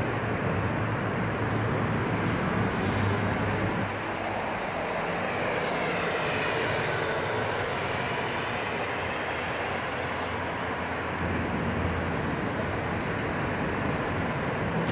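Steady road traffic noise, with a car driving past about halfway through.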